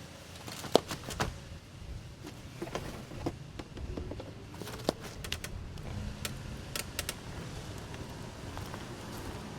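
Irregular light clicks and knocks of hands and tools working on a lawn mower during an oil change, with a sharp knock about a second in and another near five seconds, over a low steady hum.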